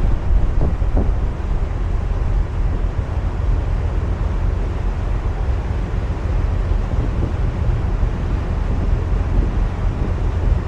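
Wind buffeting the microphone on a moving boat: a loud, steady low rumble with rushing sea noise beneath.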